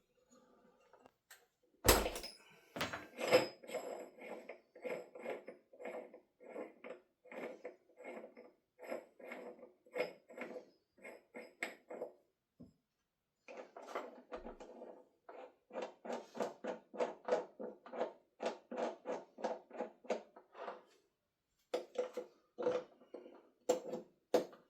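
Rapid run of short scrapes and clicks, about two to three a second, with a couple of sharper knocks, from small parts being handled.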